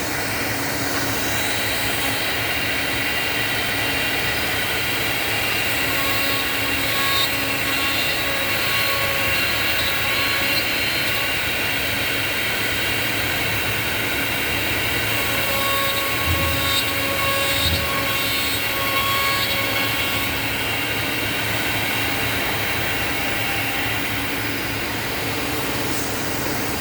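Two-table CNC mortising machine running, a steady machine whine with a higher tone that comes and goes twice as it cuts. Two short low thuds come about two-thirds of the way through.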